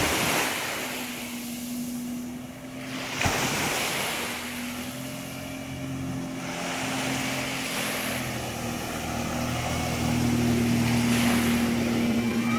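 Jet ski engine running at a steady drone while towing a banana boat, with rushing water spray and wind buffeting the microphone in repeated surges.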